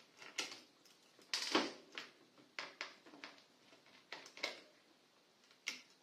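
Irregular small clicks and taps of fuses being pulled by hand from a VanMoof S3 e-bike's circuit board, the loudest about one and a half seconds in.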